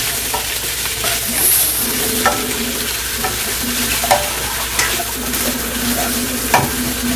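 Broccoli, onion and carrot sizzling in a hot nonstick wok as a spatula stirs and scrapes them, with scattered light clicks of the spatula against the pan.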